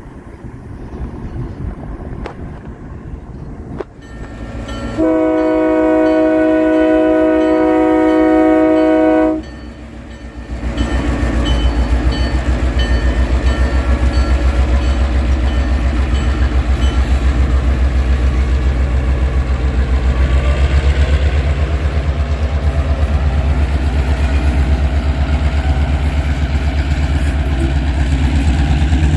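Locomotive chime horn sounds one long blast of about four seconds, beginning about five seconds in. Then an EMD GP9's 16-cylinder two-stroke diesel runs loud and close as the locomotive passes, with a fast, low throbbing.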